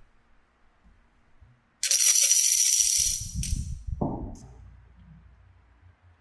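A sudden bright jingling rattle with a high ringing shimmer that lasts about a second and a half, followed by a lower rolling rumble with a knock about four seconds in.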